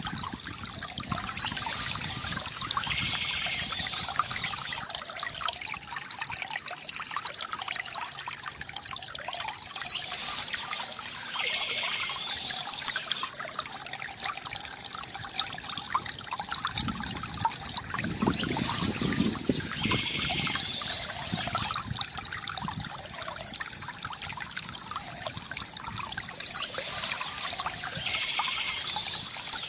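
Small stream trickling and flowing steadily, with a brighter, hissier stretch of splashing returning about every eight or nine seconds.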